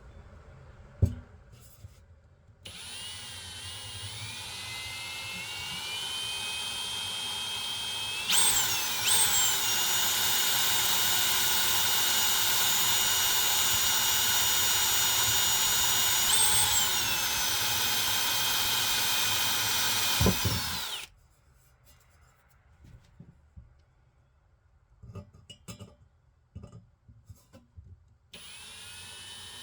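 Electric drill spinning up and running with a steady high whine, boring small holes in a metal exhaust part; its speed steps up partway through, drops back later, and the drill stops. Light clicks and handling noises follow, and the drill starts up again near the end.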